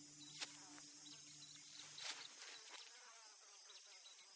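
Faint insect chorus: a steady high buzzing trill with scattered short chirps. A sharp click comes about half a second in, and a low hum cuts off about two seconds in.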